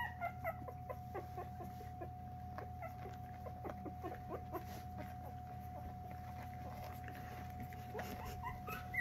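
A litter of young Coton de Tulear puppies crying with short, high, falling squeaks. There are many in quick succession at first; they thin out for a few seconds and pick up again near the end.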